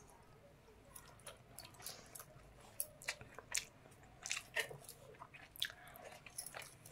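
A person eating watered rice by hand close to the microphone: chewing with irregular short mouth clicks and smacks, denser and louder from about a second and a half in.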